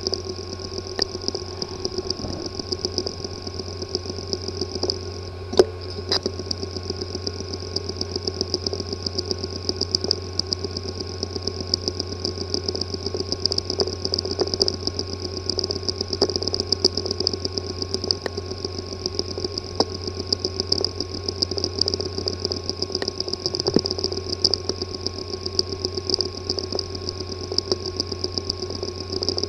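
A damaged hard drive spinning with a steady whine and hum, overlaid by rapid irregular ticking and one sharper click about five and a half seconds in: the sound of a physically damaged disk assembly.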